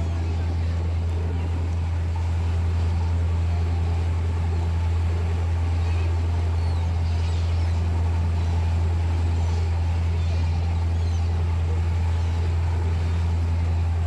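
Tour boat's engine droning steadily with a deep, even hum, over the rushing wash of its wake. Faint gull cries come now and then.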